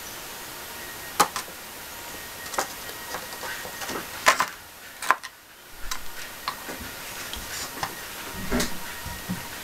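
Scattered light clicks and knocks at irregular intervals, about a dozen in all, from objects being handled.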